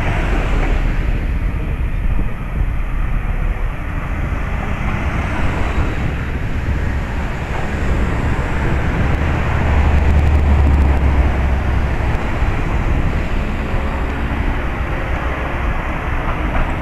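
Fireworks display heard as a dense, continuous rumble of many shells bursting together, with no single bangs standing out; the low rumble swells about ten seconds in.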